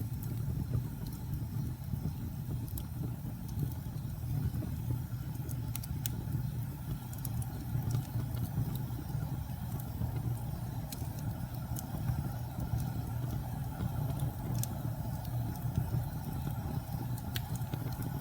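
Log fire burning in a fireplace: a steady low rumble of the flames, with scattered sharp crackles and pops from the wood.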